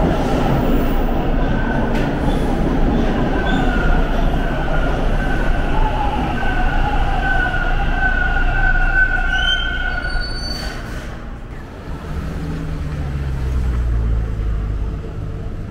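Toronto subway train (TTC T1 car) moving along the station platform: a loud rumble with a steady high whine from the wheels and motors, and a short whine that climbs sharply about ten seconds in. About twelve seconds in, the sound gives way to the lower rumble of downtown street traffic.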